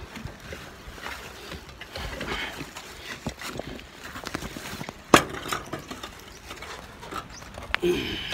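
Rain beginning to fall: scattered drops tapping irregularly close to the microphone, with one sharp tap about five seconds in.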